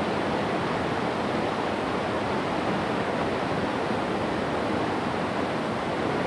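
Fast-flowing river rushing through rocky rapids: a steady, even rush of water.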